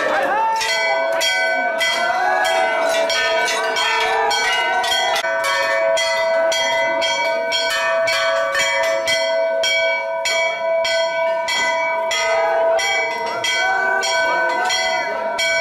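Several brass temple bells rung over and over, about three strikes a second, their tones ringing on together without a break.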